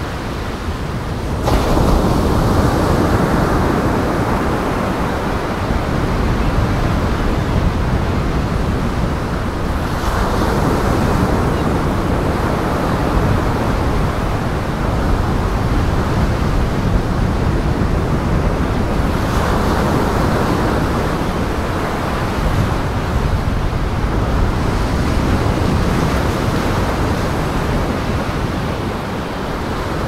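Lake waves surging and breaking against a pier, a continuous rushing that swells louder about every nine seconds.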